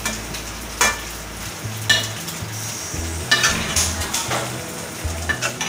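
Pepper chicken fry sizzling in an aluminium pan as it is stirred with a steel spoon, the spoon knocking and scraping against the pan several times. The chicken is cooked through in its thick pepper masala.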